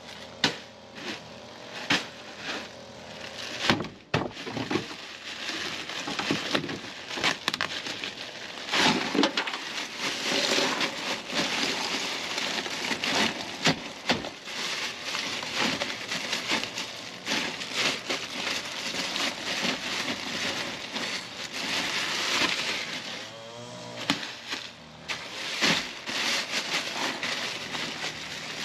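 Ice cubes clattering and crunching as they are shaken and poured out of a plastic bag into a soft-sided cooler packed with bottled water, with many small knocks and a continuous rattling hash.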